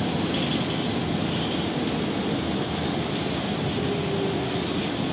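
Steady engine and road noise heard inside a moving city bus.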